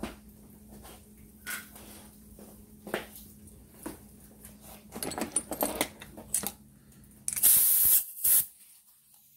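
Light clicks and knocks of metal parts and tools being handled, then two short hissing bursts from a pneumatic air hammer near the end, the first lasting under a second and the second briefer.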